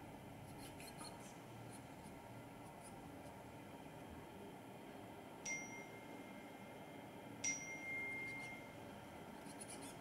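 A small metal chime struck twice, about two seconds apart, each strike ringing on one clear high note for about a second. There are faint light clicks near the start and the end.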